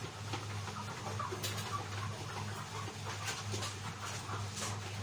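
A chicken clucking while held with thread being pulled from its throat, with scattered clicks and rustles and a steady low hum underneath.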